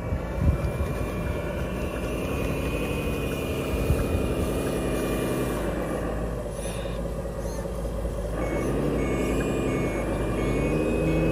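Sound module of a JZModel Liebherr 580 RC hydraulic wheel loader playing a simulated diesel engine that rises and falls with the throttle, over a steady high whine, with a few knocks in the first seconds. About eight and a half seconds in, the module starts a reversing beeper, evenly spaced beeps.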